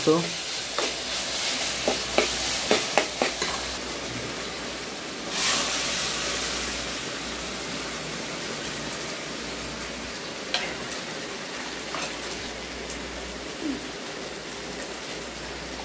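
Metal spatula scraping and clicking against a steel kadai of frying vegetables. About five seconds in, a sudden burst of sizzling as starchy water drained from boiled rice is poured into the hot pan, settling into a steady hiss.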